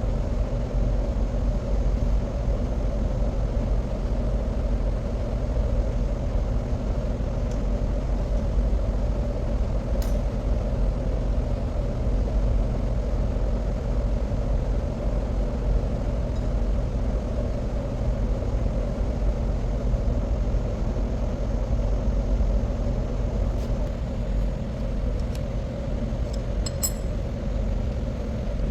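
Steady low machinery rumble with a constant hum, the background drone of an underground hydroelectric powerhouse, with a few light metal clicks, one about ten seconds in and several near the end.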